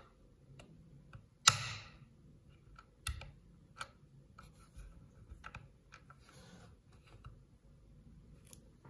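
Small plastic Kinder toy crocodile being handled and snapped together on a wooden cutting board: scattered light plastic clicks and taps, with one sharper click about one and a half seconds in.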